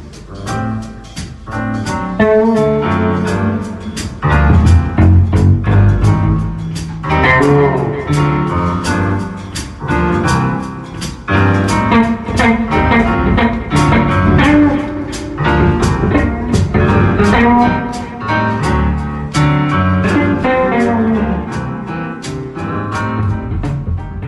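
Band playing an instrumental jazz-blues passage: guitar lines over a bass line, with regular sharp strikes from the drum kit.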